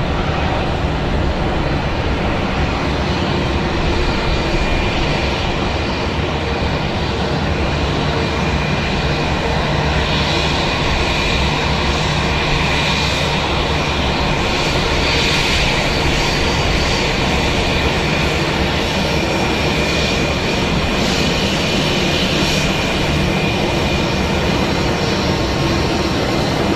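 Airbus A319 jet engines running steadily: a continuous loud rumble with a thin high whine above it.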